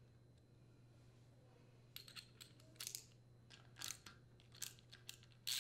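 A socket wrench on the nuts that hold the fan guard to the condenser fan motor makes scattered short metallic clicks and rattles, starting about two seconds in. Before that there is only a faint low hum.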